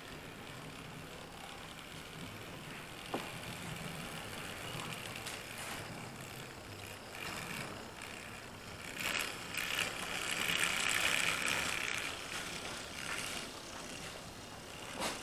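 Model diesel locomotive running around a small oval of track, its motor and wheels whirring and rattling, louder as it passes close by from about nine to twelve seconds in. A sharp click about three seconds in.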